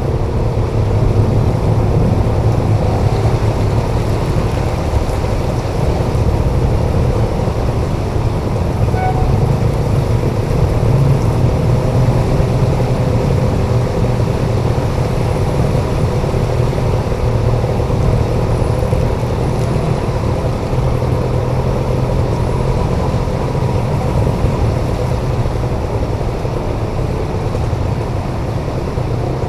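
Small motorcycle engine running steadily at low speed while riding through floodwater, with the wash of tyres in the water and surrounding traffic.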